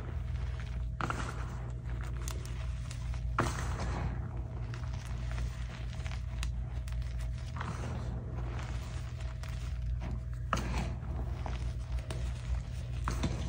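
Soft, powdery dyed gym chalk squeezed and crumbled by hand in a bowl: a light, continuous crunchy crackle with about five fuller crunching swishes, each a couple of seconds apart, as handfuls are pressed together.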